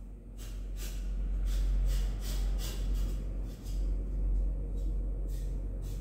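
Washing up by hand at a kitchen sink: a run of short, irregular hissing splashes and rubs, over a steady low hum.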